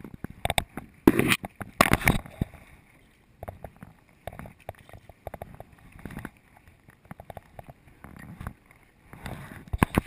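Paddle strokes splashing in the water beside an inflatable Zodiac boat, with scattered knocks and clicks of paddles and gear against the boat. The louder strokes come about a second in, again at about two seconds, and near the end.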